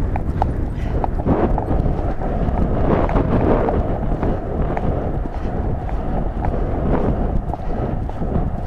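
Wind rushing over a helmet-mounted camera's microphone as a horse gallops across grass, with the horse's hoofbeats under the wind.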